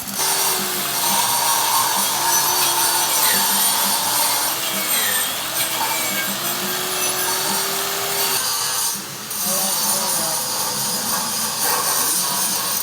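GMAW (MIG) welding arc crackling and hissing steadily, breaking off for about a second near the nine-second mark and then striking again.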